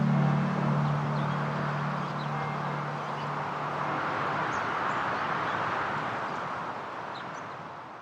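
The last low guitar note dies away over the first few seconds, leaving an outdoor ambience of scattered high bird chirps over a steady rushing hiss, which fades out near the end.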